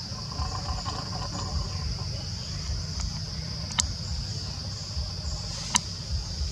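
Steady high-pitched drone of insects in the forest, over a continuous low rumble, with two sharp clicks about two seconds apart, near the middle and towards the end.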